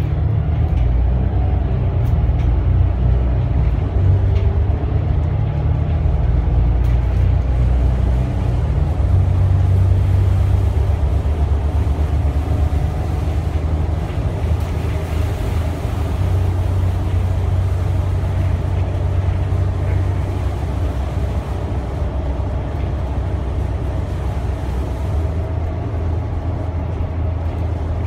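Volvo D8K six-cylinder diesel and ZF EcoLife automatic of a Volvo B8RLE bus under way, heard from inside the cabin: a steady low engine drone with road noise, the engine note shifting in steps a few times.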